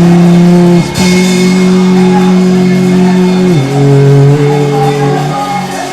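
A man singing a slow worship line, holding the word 'Holy' as one long sustained note. There is a brief break about a second in, then he steps down to a lower held note about halfway through.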